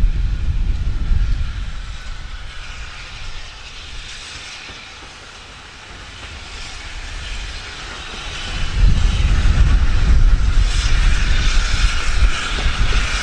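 Steam train running, its noise building about two-thirds of the way through, with wind buffeting the microphone as a gusty low rumble.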